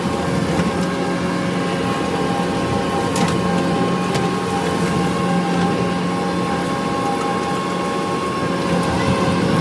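Kubota SVL65 skid steer's diesel engine and hydraulics running steadily under work, a constant drone with several steady tones layered over it and a few faint clicks.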